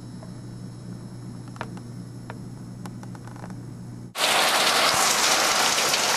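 A low steady hum with a few faint ticks, then about four seconds in heavy rain comes in abruptly, a loud steady hiss of rain pouring down.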